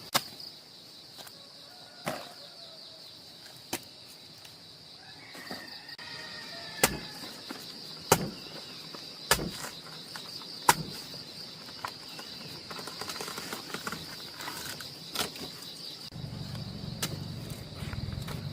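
Sharp knocks, one every second or two, like tool strokes on wood, over a steady high-pitched insect drone. A low rumble comes in near the end.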